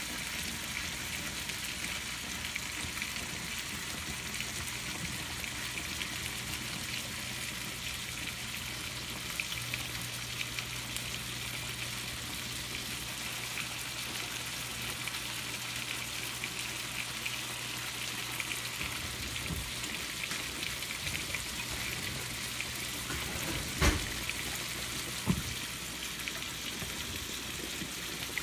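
Sausage, corn and vegetables sizzling in skillets on an electric stovetop, a steady crackling hiss. A low hum underneath stops near the end, around two sharp knocks of cookware.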